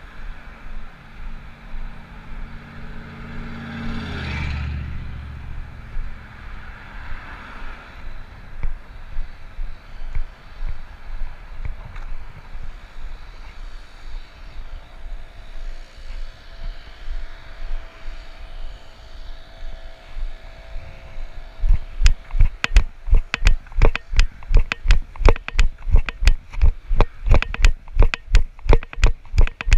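A car passes on the road about four seconds in, over steady outdoor noise. From about 22 seconds a loud, rapid, even knocking sets in at about four knocks a second and keeps going.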